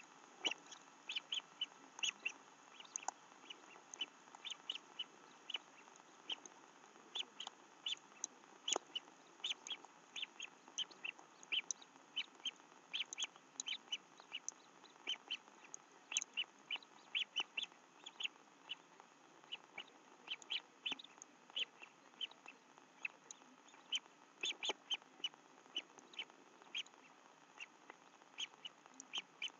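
Small birds chirping in a rapid, uneven series of short, high chirps, about two or three a second, over a faint steady hiss. A few sharper ticks stand out here and there.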